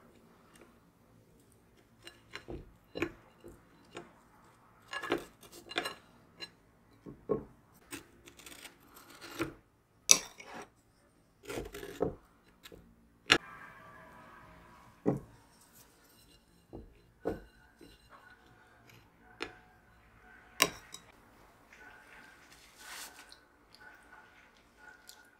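Metal spoon and small spatula tapping and scraping against baked tart shells and a ceramic plate as lemon cream is spooned in and smoothed flat; irregular light clicks and short scrapes.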